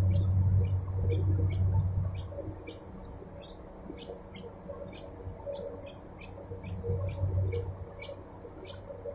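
Bulbul nestlings begging at the nest while being fed: short, high chirps repeated about three times a second. A low rumble runs underneath, strongest in the first two seconds and again around seven seconds in.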